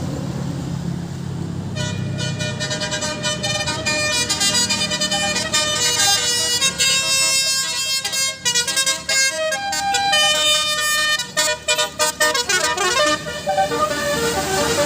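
Bus telolet horn, basuri type, playing a fast tune of many short high horn notes over the bus's running engine, which is heard alone for about the first two seconds. A quick falling run of notes comes near the end.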